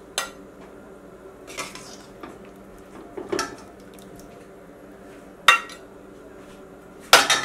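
Metal serving spoon knocking and scraping against a stainless steel pot and a plate while ladling beef in sauce: about five sharp clinks, the loudest a quick double clink near the end.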